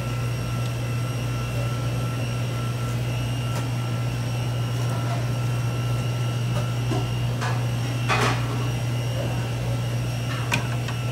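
Steady low hum of restaurant kitchen machinery, with a few brief rustles and knocks from handling shredded lettuce and the bun, the loudest about eight seconds in.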